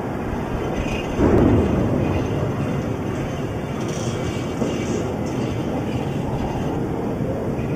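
Steady low rumble over the city, with a sudden dull boom about a second in that dies away over the next second, the sound of a distant explosion.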